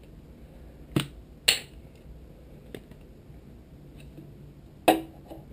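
A few sharp clicks and knocks of lure-rigging parts and tools being handled on a desk: two about a second in, a faint one near the middle, and a louder one near the end.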